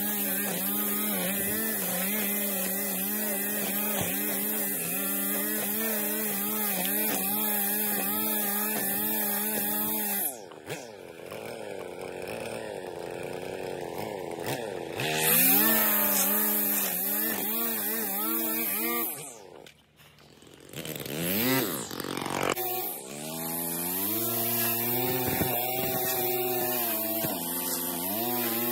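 Small gasoline engine of lawn equipment running with a wavering pitch. It revs up around fifteen seconds in, drops almost to nothing about twenty seconds in, then revs and settles back to a steady run.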